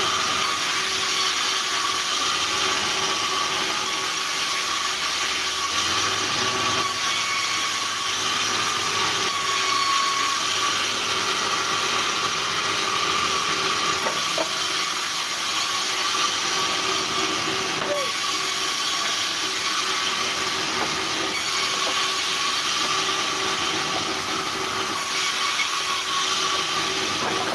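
Large vertical bandsaw mill running and sawing logs into boards: a continuous hiss of the blade cutting through the wood over a steady hum that holds even throughout.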